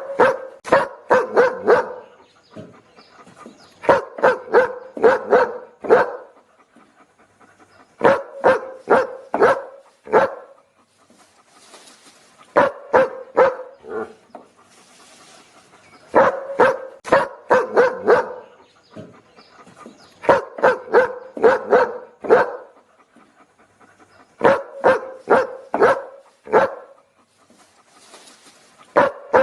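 A dog barking in quick bursts of five or six barks, a new burst every three to four seconds, repeating evenly as a loop. A faint hiss sits in some of the gaps between bursts.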